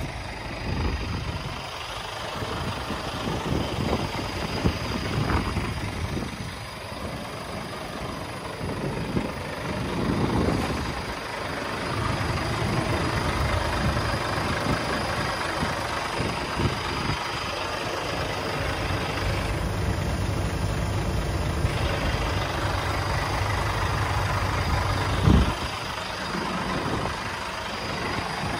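Scania G490 tipper's diesel engine idling steadily, a low continuous rumble. One sharp knock stands out about 25 seconds in.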